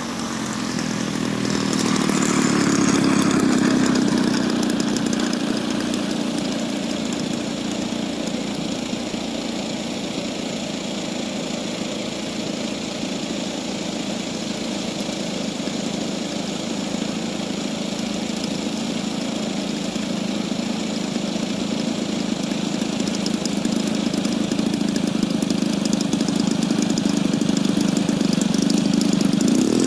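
Engine of a Great Planes Giant Stik radio-controlled model airplane running steadily. It is louder for a couple of seconds early on and grows louder again toward the end as the plane rolls in along the runway.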